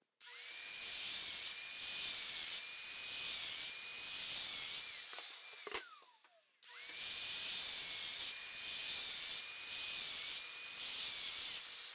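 Festool Domino joiner cutting mortises into a plywood edge: its motor runs with a steady high whine over a rushing hiss, the pitch dipping briefly a few times as it plunges. It spins down with a falling pitch about six seconds in, starts again a moment later for a second run, and spins down again near the end.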